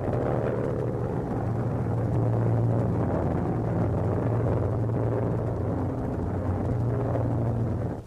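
Steady drone of a bomber formation's many piston aircraft engines, a deep hum with a rushing noise over it, cutting off abruptly at the end.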